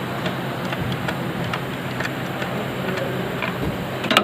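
Light, slightly irregular ticking and clicking of hand tools at work on the ignition coil of a Renault Kwid engine, over a steady hum, with a sharper click near the end.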